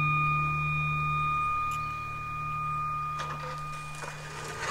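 Demolition excavator with a grab attachment working: a steady high-pitched whine over a low engine hum. The whine stops about three seconds in, and scattered knocks and crunches of breaking brickwork follow.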